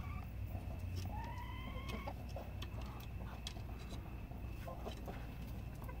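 Chicken hen giving one drawn-out, slightly rising call about a second in, with soft scratches and clicks in the coop around it.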